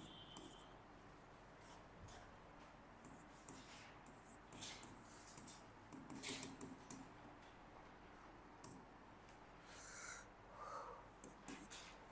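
Near silence: room tone with faint, scattered scratches and clicks.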